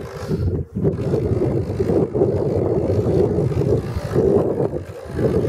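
Wind buffeting the microphone: a loud, low rumbling roar that drops out briefly about a second in and again near the end.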